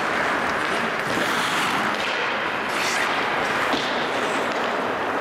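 Ice hockey arena ambience: skates scraping across the ice in an echoing rink, with a few sharp knocks of sticks and puck.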